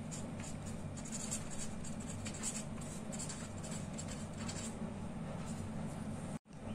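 A pen scratching on paper as a word is written out by hand, a run of short strokes that stops after about four and a half seconds. A steady low hum lies underneath.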